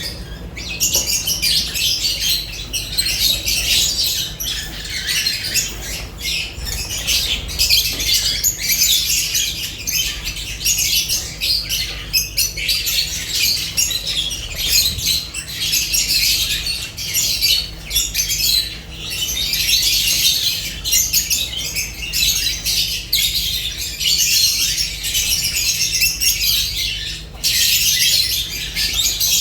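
Flock of lovebirds chattering and squawking nonstop in rapid, high-pitched calls. A faint steady low hum runs underneath.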